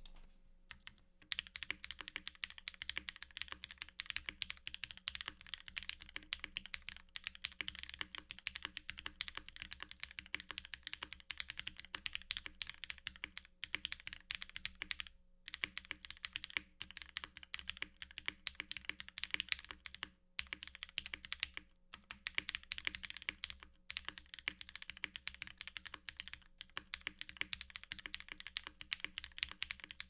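Steady, fast typing on a top-mount mechanical keyboard with linear Cherry MX Black switches, an aluminium plate and GMK Dolch keycaps. Rapid keystroke clacks start about a second in and run on with a few brief pauses, over a faint steady electrical hum in the recording.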